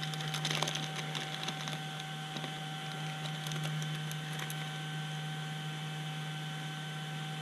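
Light clicks and soft rustling of a small plastic bag of screws being handled and opened, thinning out after about four seconds, over a steady low electrical hum.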